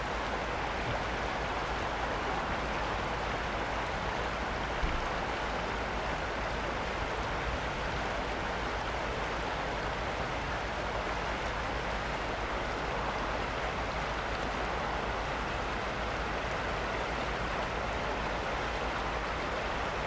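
Steady rushing of a fast-flowing river, an even noise with no breaks.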